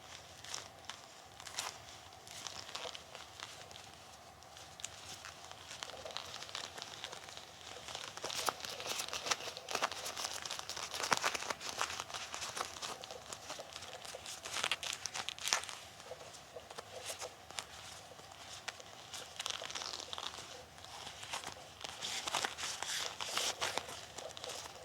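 Hands in Bilpearl rubber gloves rubbing and pressing together, with the dense crackling, sticking rustle of rubber gripping and peeling apart. It is busiest through the middle and again near the end, over a faint steady hum.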